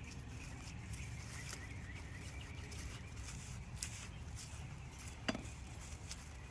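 Faint rustling and scattered light clicks and taps over a low, steady rumble, with one sharper click about five seconds in.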